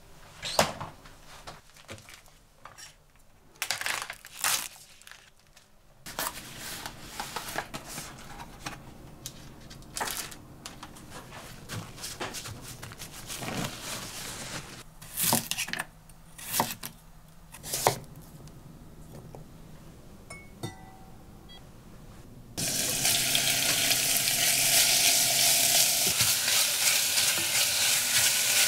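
Short knocks and rustles of kitchen handling. Then, about three-quarters of the way in, cubed beef starts sizzling loudly in sesame oil and cooking oil in an enamelled cast-iron pot as it is stir-fried.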